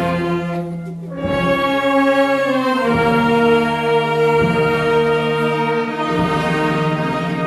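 Wind band playing a slow funeral march in sustained chords over low bass notes that come in every second or two. The sound dips briefly about a second in, then the band swells again.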